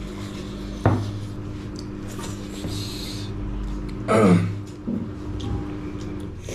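Mealtime table sounds: a sharp clink of a spoon or plate about a second in, then a short falling vocal sound like a cough or grunt about four seconds in, over a steady low hum.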